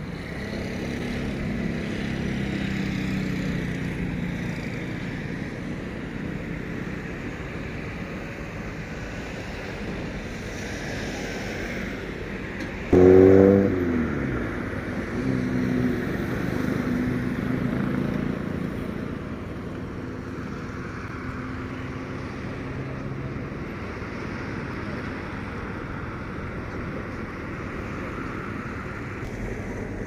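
Road traffic: vehicle engines passing and fading along a seafront road. About thirteen seconds in, a loud sound starts suddenly and falls in pitch over about a second.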